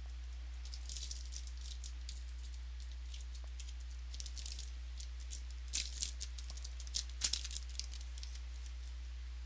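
Football trading cards being handled and flipped through, a scattering of light crisp snaps and rustles, busiest about six and seven seconds in, over a steady low electrical hum.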